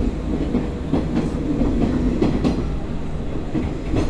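Hanshin Electric Railway train running along the track, heard from inside the car by the door: a steady low rumble with several wheel clacks over rail joints.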